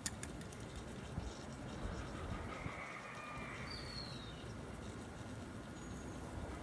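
Quiet outdoor background with faint bird chirps: a short falling whistle about four seconds in and a brief high note near the end.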